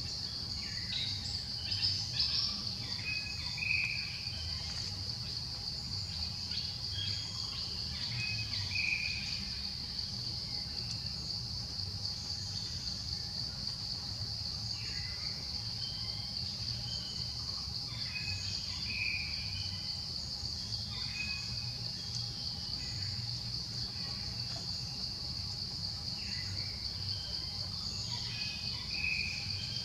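Steady high-pitched drone of forest insects, with a few short chirps every several seconds.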